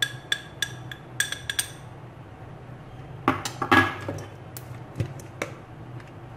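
Metal spoon clinking against a plate in quick, even taps, about three a second, as flour and cornflour are stirred together. About three seconds in comes a louder clatter of dishes and utensils being set down, followed by a few single clicks.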